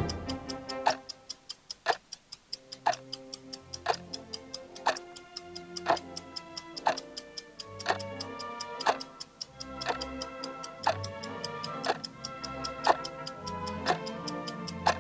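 Countdown timer's clock-ticking sound effect, about two ticks a second with a stronger tick each second, over background music.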